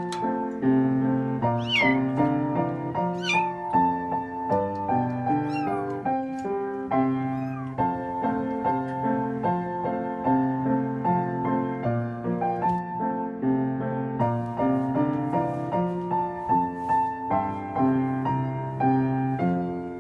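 Piano background music, with a kitten meowing several times in the first half, each call falling in pitch.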